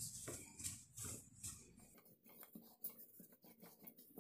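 Faint, irregular rubbing and soft knocks of a plastic rolling pin rolling out shortcrust pastry dough on a plastic-covered table.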